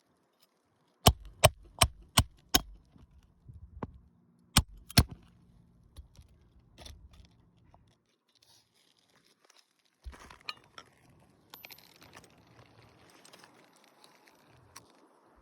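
Hammer strikes driving roofing nails into asphalt shingles: five quick sharp blows, then two more a few seconds later, followed by lighter scraping and clinking of tools on the shingles.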